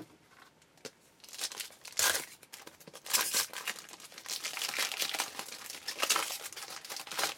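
Baseball card pack wrapper being torn open and crinkled by hand: irregular crinkles and rips starting about a second in.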